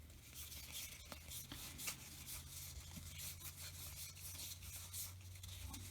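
Faint rubbing and rustling of baseball cards sliding against one another as a stack is thumbed through, with a few light clicks of card edges over a low steady hum.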